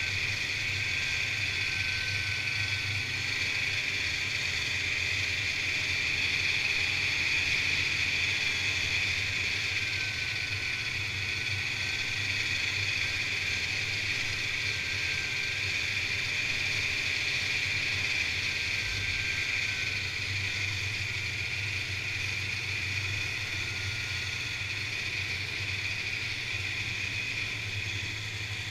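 Snowmobile running steadily at trail speed, heard from a camera mounted on the machine itself: an even engine drone with a faint whine that wavers slightly in pitch.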